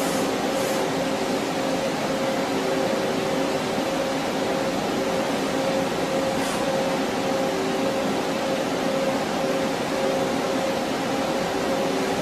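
Doosan PUMA V8300MR CNC vertical turning lathe running with a steady machine hum made up of several held tones, with a short hiss about six and a half seconds in.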